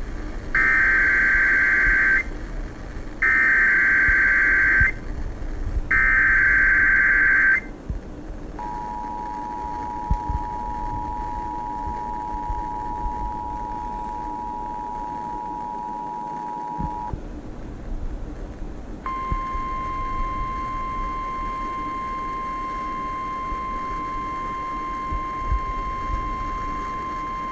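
Emergency Alert System sequence on weather radio. It opens with three short bursts of warbling SAME header data, followed by the two-tone 853/960 Hz EAS attention signal for about eight seconds. After a short pause comes the steady single 1050 Hz NOAA Weather Radio alert tone for about nine seconds, heralding a severe thunderstorm warning. Radio hiss runs underneath.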